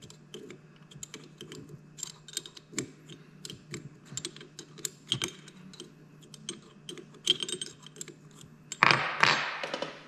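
Irregular light metallic clicks and ticks of a small open-end wrench and distributor parts being handled on a tabletop, over a low steady hum. Near the end comes a louder scraping noise lasting about a second.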